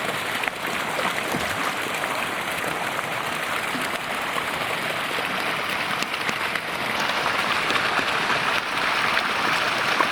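Steady rushing noise of running water, a little louder in the second half, with a few faint clicks.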